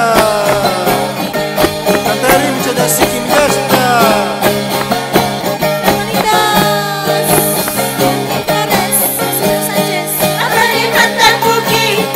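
Norte Potosí carnival music: a charango strummed quickly and evenly, with singing in phrases that slide down in pitch.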